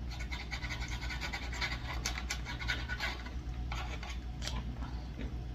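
Close-miked eating sounds: chewing with dense, irregular little clicks, crackles and scrapes, over a steady low hum.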